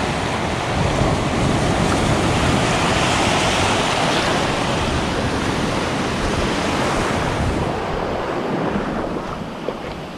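Small surf waves breaking and washing over the shallows: a steady rush of water, with wind on the microphone, easing off near the end.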